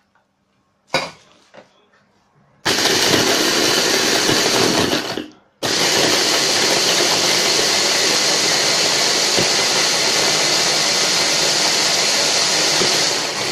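Electric blender running, grinding pieces of baked sponge cake into crumbs: a run of about three seconds, a brief stop, then a longer run of about eight seconds. A light knock comes about a second before it starts.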